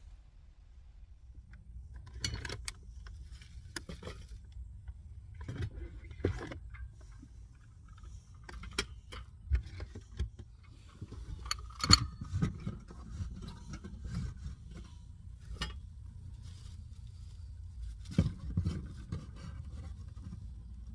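Hands handling and setting down small kitchen items: scattered clicks, knocks and light clinks of glass jars, a wire basket and a metal gas canister being arranged, with one sharp knock about twelve seconds in. A low steady rumble runs underneath.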